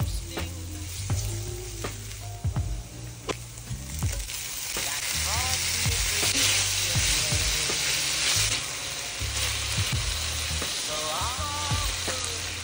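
Oil sizzling in an enamelled cast-iron pan as onions and garlic, then cubes of pork, are sautéed; the sizzle grows much louder about five seconds in. A spatula scrapes and taps the pan now and then.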